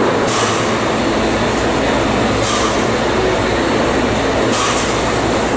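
Automatic drum-filling machine running with its filling lance in a steel drum: a loud, steady rushing noise, with a short hiss about every two seconds.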